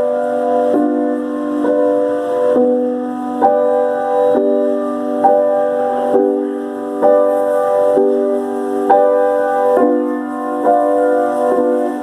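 Piano playing slow chords, a new chord struck about once a second at an even tempo and each held until the next.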